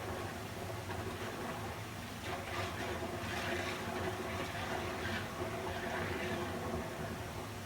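Water flowing steadily, a continuous rush that swells and eases irregularly over a low steady hum.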